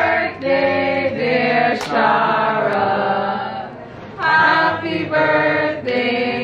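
Several voices singing together in a choir-like chant of held notes, with a short break just before the last third.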